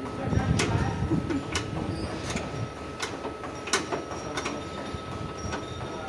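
Car trunk lid being handled on its hinges: scattered light metallic clicks and knocks, over a steady high hum. A low rumble comes in the first second or so.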